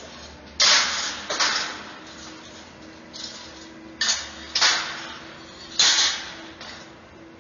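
Steel crowd-control barricades clanging as they are pulled off a trailer stack and set down on a concrete floor: five sharp metal clangs over about five seconds, each ringing on briefly in a large echoing hall.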